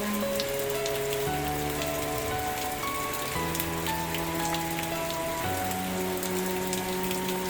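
Steady rain pattering on a surface, with many small drops ticking through it. Soft sustained musical chords sound underneath, shifting every second or two.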